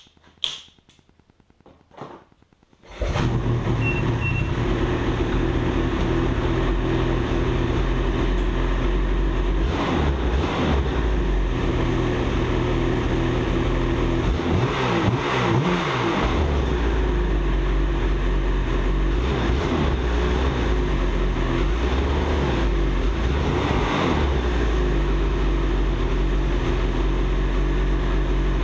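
A 2019 Ski-Doo Summit's two-stroke engine catches about three seconds in after a few knocks, then runs steadily. It is revved briefly a few times: this is the newly fitted Munster throttle being tried out.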